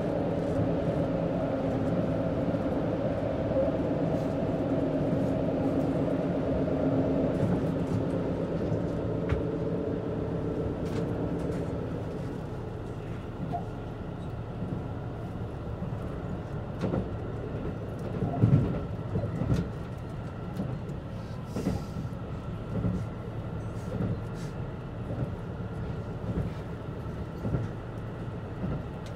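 KiHa 85 series diesel railcar heard from inside: its Cummins diesel engine drones steadily under power, then fades out about twelve seconds in as power is shut off and the train coasts. After that the quieter running carries wheel-on-rail knocks, with a heavy thud about two-thirds of the way through.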